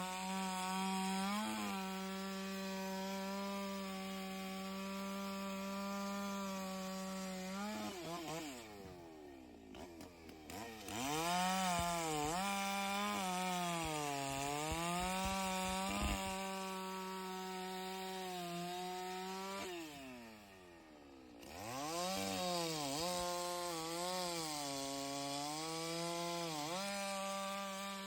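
Stihl MS 660 chainsaw running at high revs as it cuts through logs, its pitch sagging and recovering as the chain loads up in the wood. Twice, about a third and about three quarters of the way through, the revs fall right away and then climb back to full speed.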